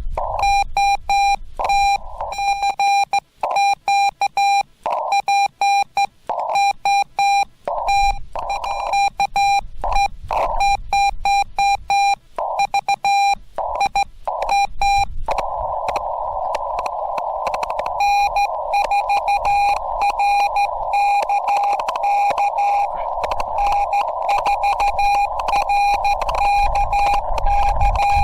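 Morse code from a Yaesu FT-891 transceiver: a keyed tone of about 800 Hz in dots and dashes. For the first half it is the rig's sidetone while sending on a straight key, with near-silent gaps and short spurts of band hiss between characters. About halfway, steady receiver hiss sets in through the narrow CW filter, and a few seconds later another station's Morse comes through it.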